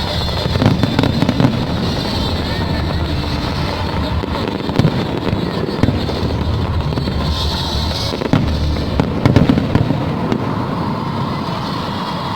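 An aerial fireworks display bursting: repeated sharp bangs, with clusters of louder reports about a second in and again near the end, over a continuous bed of crackle and rumble.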